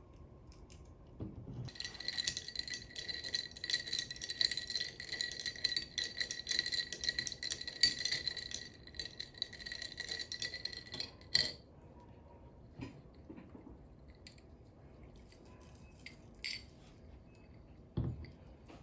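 Metal straw stirring ice cubes in a glass of iced coffee: a fast, continuous rattle of ice clinking against the glass, with the glass ringing, starting about two seconds in and stopping about eleven seconds in with a sharp clink. A few faint clinks follow, and a low knock near the end.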